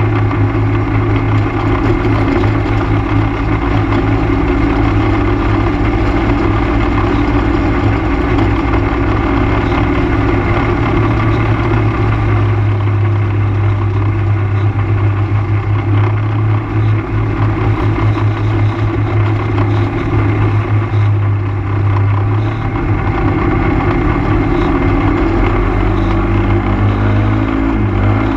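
ATV engine running steadily while riding along a gravel road, with tyre noise from the gravel underneath; the engine note shifts in pitch near the end.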